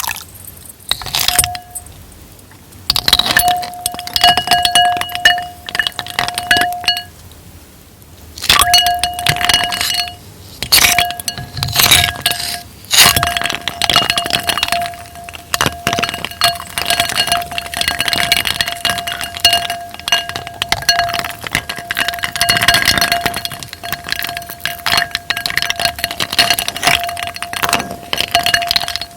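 Rose-shaped ice clinking and rattling against a glass in quick, dense clinks, with the glass ringing a steady note under them. There are two short pauses near the start, then the clinking runs on without a break.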